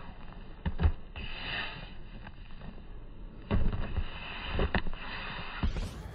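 Boxing gloves landing during a sparring exchange: several short, dull thuds in clusters, about a second in, around three and a half to four seconds in, and near the end, mixed with short, sharp breaths.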